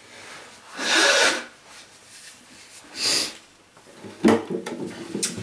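Someone blowing their nose into a crumpled paper tissue: two short blows about two seconds apart, then a sharp knock and some rustling.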